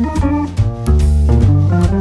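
Instrumental background music with a bass line, held chords and a steady drum beat.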